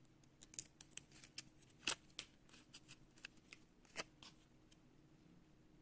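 Faint paper crackling and small sharp clicks as a paper sticker is peeled from its backing and handled, the loudest about two seconds in and again at four seconds.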